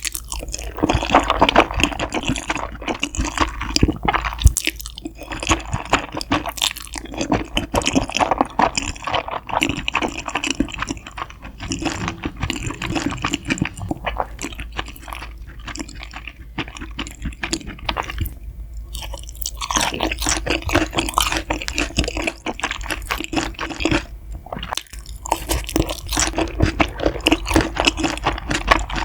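Close-miked eating sounds: steady chewing with crunching and wet squishing, a little softer in the middle.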